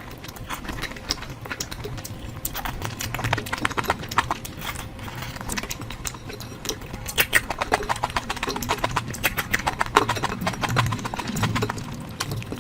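Close-miked chewing of curry: dense, irregular wet mouth clicks and lip smacks, busier in the second half.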